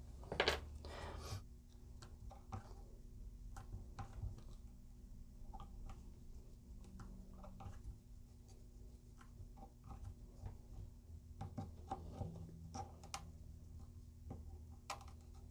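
Faint, scattered crackles and small pops from the old glue under a guitar fret as a soldering iron heats the fret: the glue is softening and releasing its hold, and the luthier suspects it is hot hide glue. A brief louder noise comes about half a second in.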